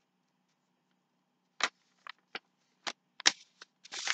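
A sheet of paper being folded and creased by hand: a run of short, sharp crackles and rustles, starting about a second and a half in and coming faster near the end.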